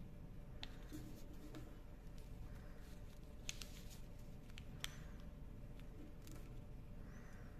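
Origami paper being folded and creased by hand: soft rustling with scattered crisp clicks, the two loudest a little past halfway.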